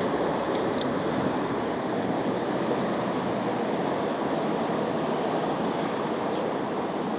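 Wind rushing over the microphone of a camera on a moving bicycle, a steady noise with two faint ticks just after the start.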